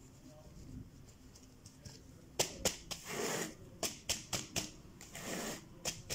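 Gloved hands pressing potting soil down in a plastic pot and handling the pot. A quiet start, then from about two seconds in a run of sharp clicks and taps with short scraping rustles between.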